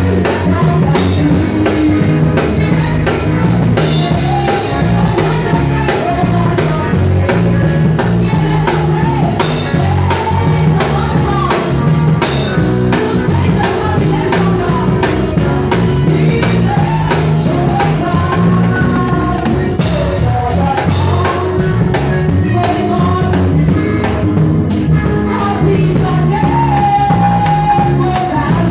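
Live church praise music: a woman singing lead into a microphone over a drum kit and low bass notes, loud and amplified.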